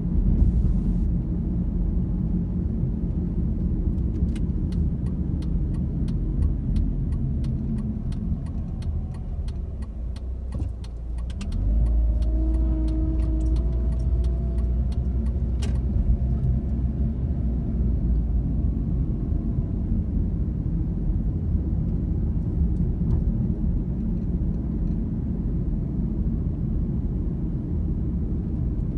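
Car engine and tyre rumble heard from inside the cabin while driving slowly. About ten seconds in the car slows, then pulls away with a rising engine note, and a run of light ticks sounds through the middle.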